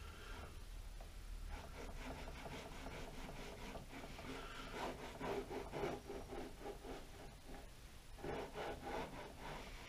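Metal-on-metal rubbing and scraping as the gib is fitted by hand into the dovetail of a Pratt & Whitney Model B lathe's cross slide, in quick repeated strokes, loudest about halfway through and again near the end.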